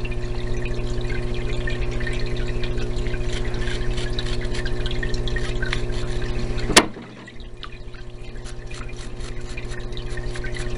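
A parts-washer pump humming steadily while solvent pours and trickles over small rifle parts that are being rubbed clean by hand. A sharp click comes about two-thirds of the way in, and the sound is briefly quieter before it builds back.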